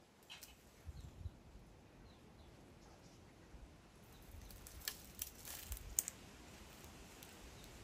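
Faint scattered clicks and light taps over a quiet background, most of them bunched about five to six seconds in.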